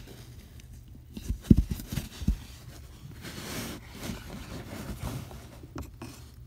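Quiet handling noises: a couple of dull knocks about a second and a half in, then a brief rustling scrape.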